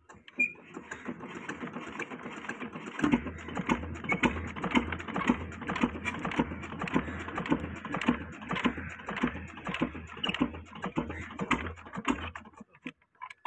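Large Petter diesel engine being hand-cranked for a cold start: a rising whirr of the crank turning, then from about three seconds in an even beat of about two heavy strokes a second as it turns over. The beat stops suddenly near the end without the engine catching.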